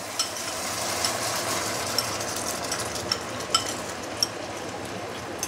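Chicken pieces and sauce sizzling in a hot wok, a steady hiss broken by scattered sharp crackling pops.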